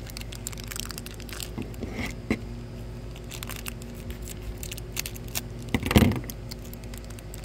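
Mystery toy packaging being handled and pulled at, crinkling and crackling in short irregular bursts, with a louder crunch about six seconds in: an attempt to open a blind pack that doesn't come open.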